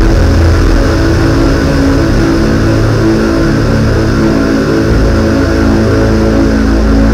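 Live electronic music from synthesizers played through a PA: a loud, steady drone heavy in the bass, with several sustained tones held above it.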